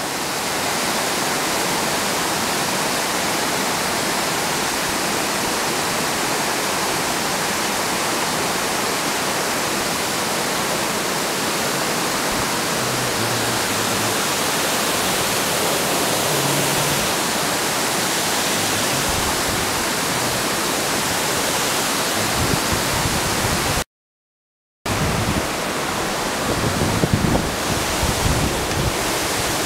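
Steady rush of water pouring over an old mill dam spillway, with a few low thumps near the end and a one-second break to silence about 24 seconds in.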